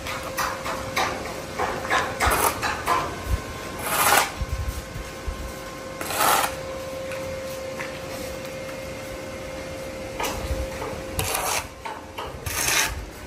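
Irregular rasping scrapes of hand work on a building site, a few strong strokes each under half a second, over a faint steady hum.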